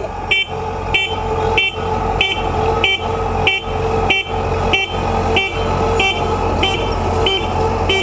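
Crawler rice combine harvester's engine running steadily while the machine travels and turns. Its electronic warning beeper sounds a short two-tone pip over the engine, about one and a half times a second.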